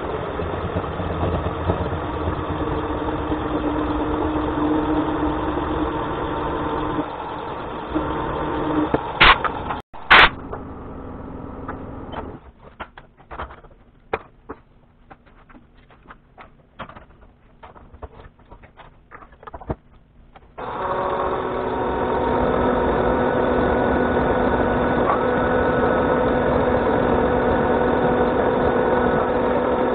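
Milling machine spindle running and cutting into a steel clamp blank, then two loud clunks about nine to ten seconds in as it is shut off and winds down. Several seconds of scattered metallic clicks follow as the tooling is changed by hand. About twenty seconds in, the spindle starts again and runs steadily while a drill cuts into the part.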